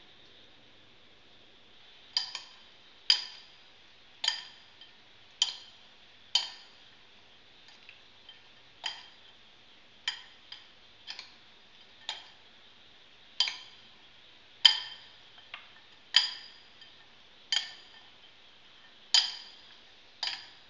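Two metal spoons clinking against a glass mixing bowl while tossing a chopped salad: sharp, ringing clinks about once a second, starting about two seconds in.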